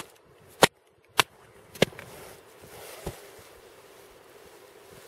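Four sharp chopping knocks about half a second apart from a hand-held tool struck down hard, then a fainter knock about three seconds in.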